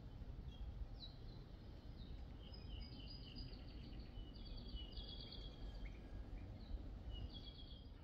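Forest songbirds calling, with short high chirps and several quick rapid trills, over a steady low rumble.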